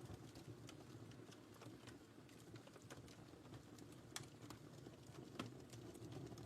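Wood fire in a fireplace crackling quietly: scattered sharp pops and snaps over a low steady rumble of the flames, with a couple of louder pops past the middle.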